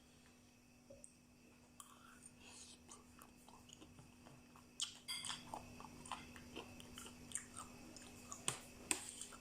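A person chewing a mouthful of spicy Thai seafood salad, with small wet mouth clicks and crunches that come thick and fast from about halfway in.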